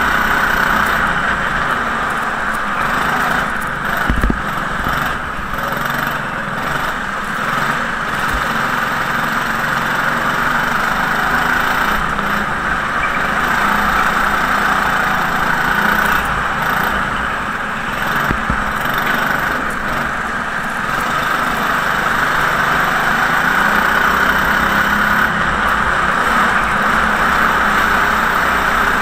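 Go-kart engine running continuously, heard from onboard the kart, its note swelling and easing as the kart drives through the corners, with a few faint knocks.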